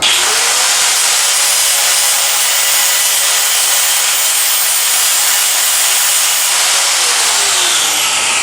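Electric grinder working the sheet-steel hood panel: the motor spins up sharply at the start, runs with a loud, steady hissing grind, and its whine falls away near the end.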